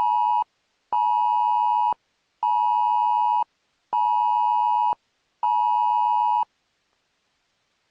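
Two-tone emergency alert attention signal sounding in a row of beeps, each about a second long with half-second gaps. The fifth beep cuts off about six and a half seconds in.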